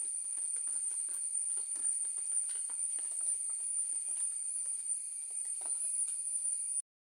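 Steady high-pitched drone of insects calling in the orchard, with light crackling and rustling from steps over dry leaf litter. The sound cuts off abruptly near the end.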